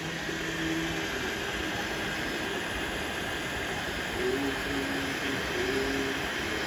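Anycubic Kobra 2 Neo 3D printer printing: its stepper motors sing in short steady tones that jump in pitch as the print head and bed move. Underneath runs the steady whir of its cooling fans with a faint high whistle.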